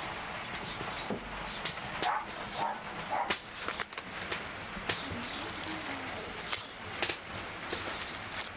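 Rural ambience with a dog barking a few times in the distance and some bird calls, over scattered sharp clicks and taps.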